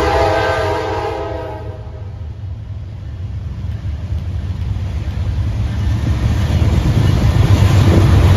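Norfolk Southern diesel freight locomotive sounding its horn, a chord of several notes held for about a second and a half before it cuts off. After that the low rumble of the lead locomotives grows steadily louder as the train draws near.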